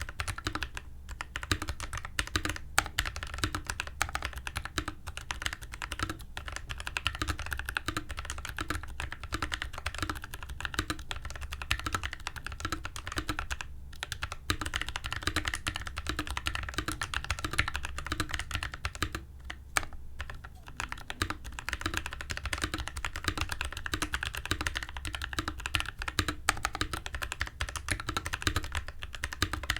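Mechanical keyboard with PACO switches lubed with Krytox 205g0 and PBT cherry-profile keycaps, typed on over a desk mat: a fast, continuous run of keystrokes, broken by short pauses about 14 and 20 seconds in.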